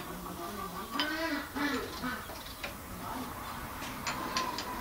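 Scattered sharp metallic clicks and taps of a hand tool working on the Fiat 450 tractor's engine, with a short wavering vocal sound about a second in.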